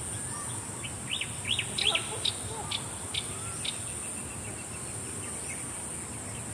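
A bird calling a quick run of sharp, high chirps, starting about a second in and lasting nearly three seconds, over a steady high-pitched insect buzz.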